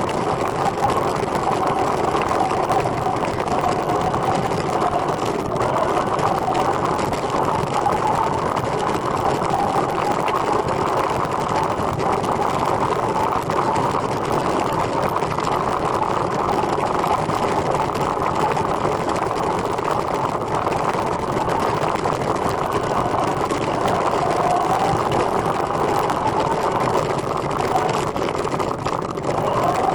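Steady whirring of a recumbent trike riding along, tyres and drivetrain running continuously, with a faint whine that wavers up and down in pitch.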